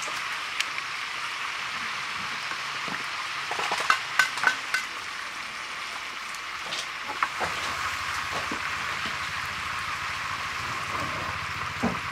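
Pieces of stingray sizzling as they fry in oil in a large wok, a steady hiss throughout. Metal tongs and spatula clink against the pan several times about four seconds in, and once or twice later.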